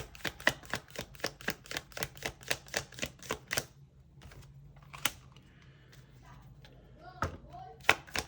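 Tarot cards being shuffled by hand, an even run of sharp clicks at about three to four a second that stops after about three and a half seconds, followed by a couple of single clicks.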